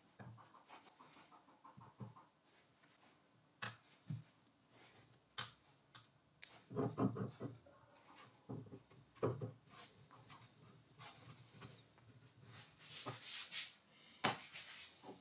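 Steel machine vise, steel parallel and brass workpiece being handled: scattered sharp metal clinks and knocks with short scraping and rubbing between them, as the parts are set in the vise and the vise is slid onto the steel milling table.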